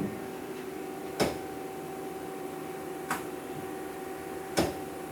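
Mazak Quick Turn 250's 12-position tool turret indexing: three sharp clunks a second and a half to two seconds apart as it steps to each new station and locks. Under them runs the steady hum of the machine under power.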